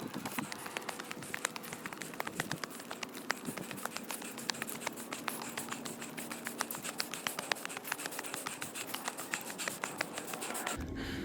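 Footsteps on a gravel and dirt hiking trail: a fast, irregular run of small crunching ticks. About a second before the end, a low rumble of wind on the microphone comes in.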